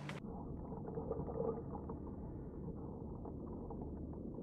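Muffled underwater sound around a scuba diver: a steady low rumble with faint crackling and no high sounds at all.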